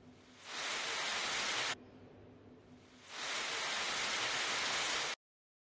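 Heavy downpour: a steady, loud hiss of rain on the street. It swells in, cuts off suddenly under two seconds in, comes back about three seconds in and stops abruptly a little after five seconds.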